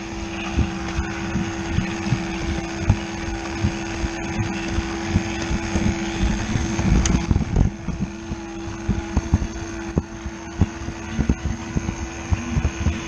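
Battery-powered Lego Duplo toy train's small electric motor whirring with a steady hum, with many irregular plastic clicks and knocks over it.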